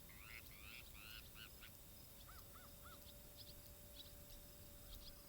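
Faint bird calls: a quick run of arched chirps in the first couple of seconds, then three short arched notes, then sparse high ticks.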